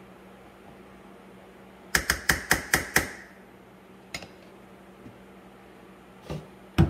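A utensil rapped about six times in quick succession against the rim of a stainless steel skillet, sharp metallic taps with a short ring, as a dollop of sour cream is knocked off into the cornbread mix; a few single knocks follow, the last one loud.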